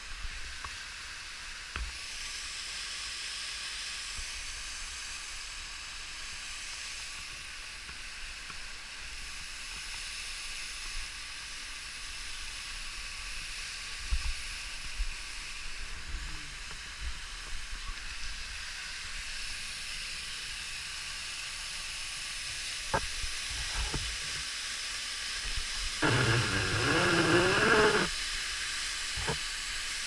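Steady rushing hiss of a waterfall, with a few scattered knocks. A person's voice sounds for about two seconds near the end.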